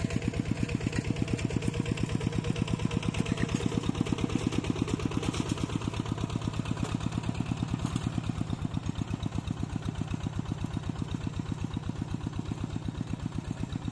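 Tractor engine running steadily, its even pulses coming about eight a second, a little quieter from about eight seconds in.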